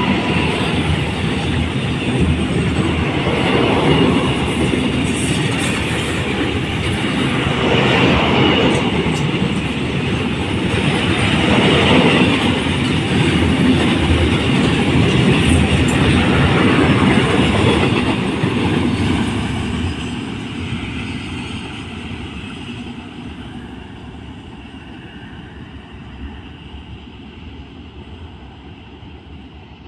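Long container freight train passing close by, its wagons' wheels rolling over the rails. The sound fades steadily over the last ten seconds as the train moves away.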